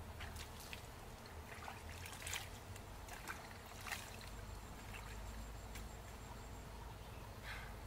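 Hands scooping and splashing water in a small plastic basin: several short splashes and trickles, with water splashed onto the face about four seconds in, and one more splash near the end.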